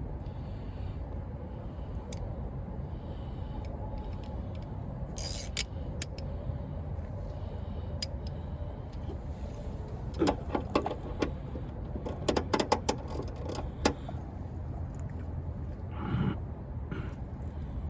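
Scattered sharp metallic clicks and clinks of hand tools being handled, coming in quick clusters about ten and twelve seconds in, over a steady low rumble.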